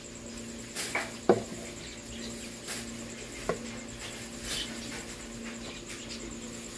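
Crickets or other night insects trilling steadily in a fast pulsing rhythm, over a steady low hum. A few sharp knocks and slaps, the loudest about a second in, as wet fish are handled against the plastic cooler.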